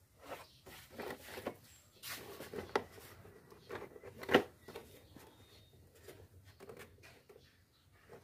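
Plastic clicks and knocks from the hard plastic headlight cowl of a Honda Supra X 125 FI as it is pulled and worked by hand against its stiff retaining hooks, with one sharper knock about four seconds in.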